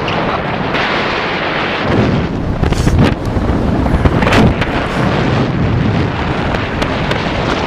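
Rushing air buffeting the camera's microphone in paraglider flight: a steady wind rush with harder rumbling gusts about two and a half seconds in and again near four and a half seconds.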